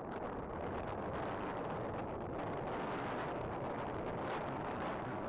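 Steady rushing of wind on the microphone mixed with water washing along the hull of a US Yachts US 22 sailboat under sail.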